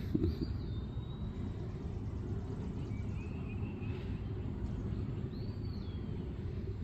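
Pasture ambience: a steady low rumble with a few faint bird calls, thin whistles that glide downward, about three of them spread apart. A couple of soft knocks right at the start.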